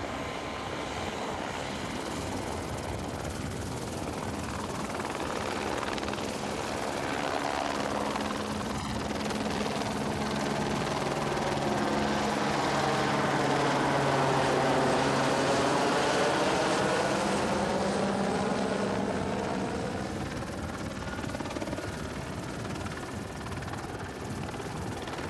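Jet airliner's Pratt & Whitney PW1500G geared turbofans running as the Airbus A220-300 rolls along the runway, swelling to a peak about halfway through as it passes and then fading, with a steady low hum under the engine noise.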